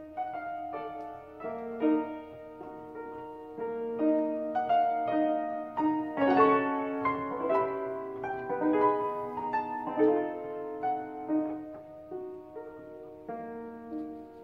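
A square fortepiano from about 1820, with a wooden frame, playing a melody over chords; each note is struck and rings on, overlapping the next.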